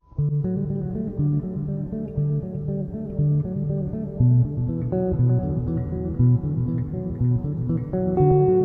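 Background music led by plucked guitar and bass guitar, with a steady, even rhythm.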